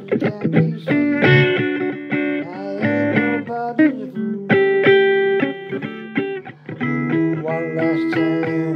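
Blues recording playing an instrumental guitar break between sung verses: picked guitar notes, some bending in pitch, over a steady accompaniment.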